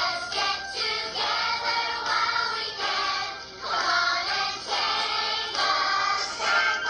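A group of voices singing a song together in chorus, with instrumental accompaniment.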